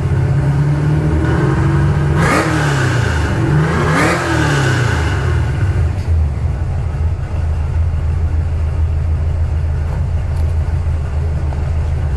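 Ford Mustang LX's 5.0-litre (302) V8, just tuned, idling with two quick revs about two and four seconds in, each rising and falling back, then settling to a steady idle.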